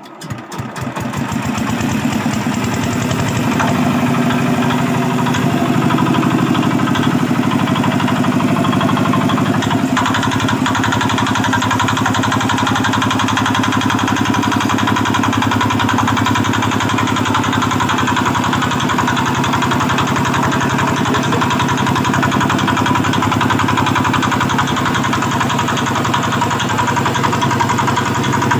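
A small engine starting: a quick run of firing strokes that speeds up over the first couple of seconds, then settles into loud, steady running.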